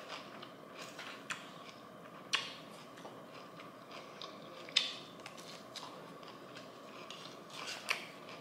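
A person eating a salmon Caesar salad: faint chewing with a handful of sharp clicks and taps spread out, the loudest about two and a half and five seconds in.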